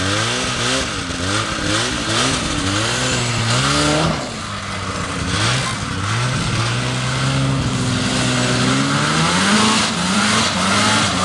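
Vintage Ski-Doo snowmobile's two-stroke engine revved in repeated short blips, then pulling away and running with its pitch climbing as it picks up speed.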